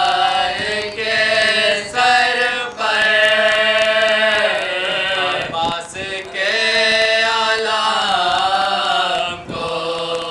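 Men's voices chanting a marsiya, the mourning elegy for the martyrs of Karbala, unaccompanied. Long held, wavering notes break off for breath every one to three seconds.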